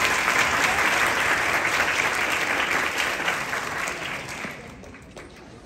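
Audience applauding, fading away over the last second or so with a few last scattered claps.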